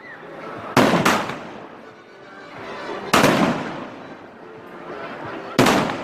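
Fireworks going off: four loud bangs, two in quick succession about a second in, one about three seconds in and one near the end, each dying away in a reverberating tail.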